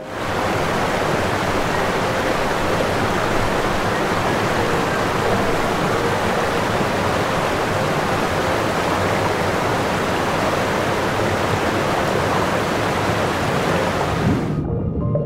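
A steady, even rushing noise with no pitch, which cuts off abruptly near the end as music comes back in.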